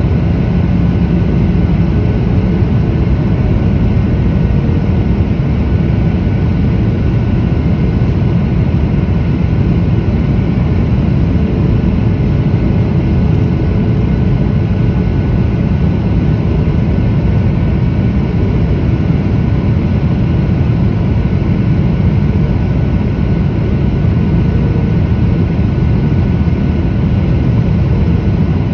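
Steady cabin noise of a Boeing 737-800 in flight, heard from a window seat beside its CFM56-7B engine: a deep, even rush of engine and airflow, with a few faint steady whining tones above it.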